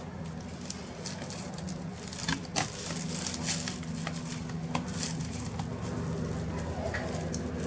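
Light, scattered clicks and scrapes of small screws and laptop parts being handled with a screwdriver, over a steady low hum.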